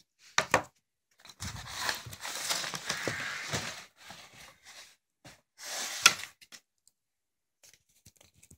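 Firework rockets and their boxed pack being handled: a couple of sharp knocks at the start, then a few seconds of rustling and scraping, another sharp knock about six seconds in, and a few faint ticks near the end.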